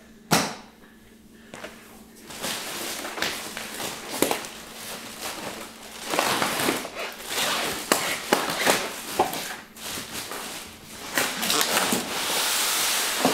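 Styrofoam packing blocks and cardboard of an exercise bike's shipping box being handled: scraping, rustling and knocks as the foam is pulled and slid out, with a sharp knock just after the start and a longer scrape near the end.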